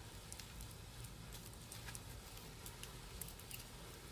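Faint rustling and scattered small clicks of cotton-gloved fingers pushing a doubled fishing line down between the fleshy leaves of a potted succulent, working it around the stem before cutting.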